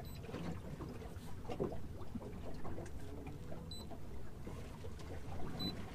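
Small-boat ambience on the water: a low steady rumble with scattered small knocks and splashes. Two short high electronic beeps sound about two seconds apart in the second half.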